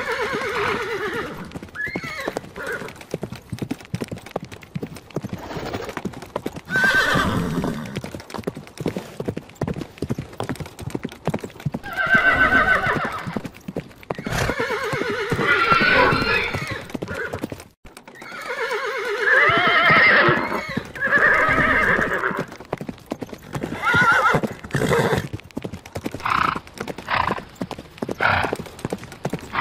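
Horses whinnying again and again, each a long wavering call, the loudest ones in the middle of the stretch, with hooves clopping throughout. The sound drops out briefly about halfway through.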